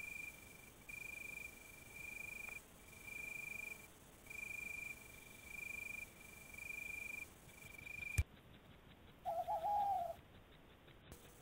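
Night insect chirping steadily, one high chirp about every second, until a sharp click about eight seconds in; a second later comes a short, louder wavering call.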